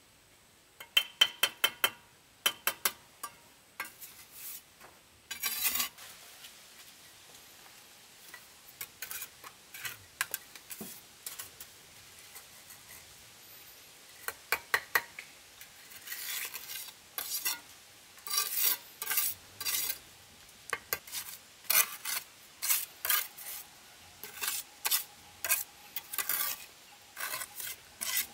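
A metal tool scraping and clinking on a hard surface in irregular bouts of short strokes, some with a brief metallic ring. The strokes come thicker and louder from about halfway through.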